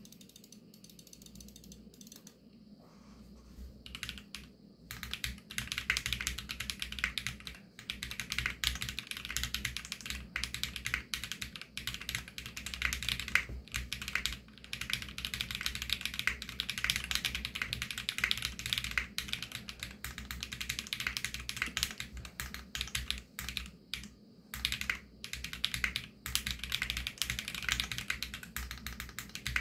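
Typing on an AJAZZ x Varo SAN AC067 65% mechanical keyboard with Krytox-lubed Varo Panda tactile switches and PBT keycaps. A few scattered keystrokes come first, then from about five seconds in, fast continuous typing with a few brief pauses.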